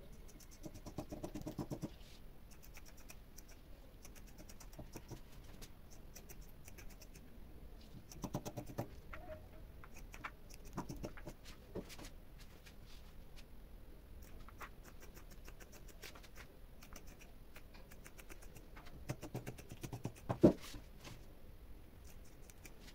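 Scissors cutting through piqué knit fabric: a long run of faint, quick snips with the cloth rustling as it is handled, and one sharper knock about twenty seconds in.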